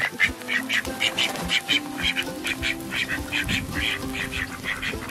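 Domestic ducks quacking in a quick run of short calls, about three a second, over quiet background music.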